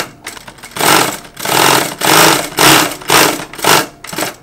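Industrial sewing machine driven by a servo motor, stitching in a series of short bursts about half a second long, starting and stopping repeatedly. Each burst speeds up and slows down again as the pedal is worked.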